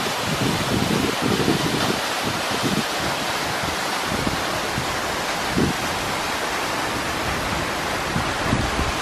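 Loud, steady rush of a tall waterfall pouring onto rocks, with uneven low buffeting of wind on the microphone.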